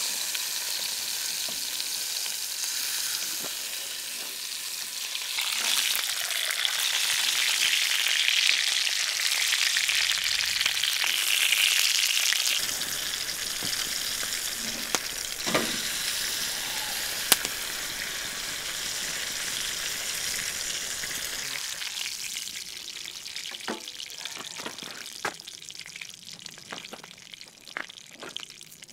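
Thick T-bone steak searing in a cast-iron skillet: a steady sizzle that swells louder for several seconds and then dies down over the last few seconds. Scattered sharp pops, most of them near the end.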